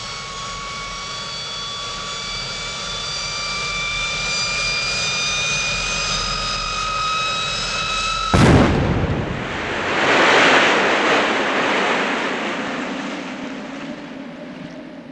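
A launched water-borne device whines steadily and slowly rises in pitch, then about eight seconds in it blows up on the lake with a sudden loud explosion. A rush of spray follows, from the column of water falling back, and fades away.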